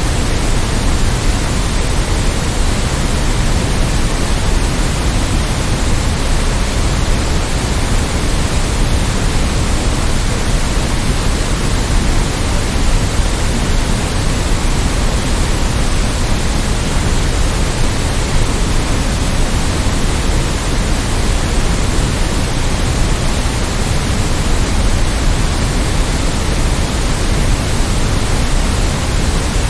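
Generated white noise: a constant, even hiss across all pitches that never changes or breaks.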